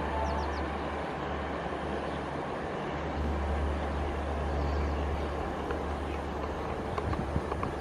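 Train of ICF passenger coaches rolling past at speed: a steady rushing rumble with a strong low drone. The last of the diesel locomotive's horn note dies away in the first half second.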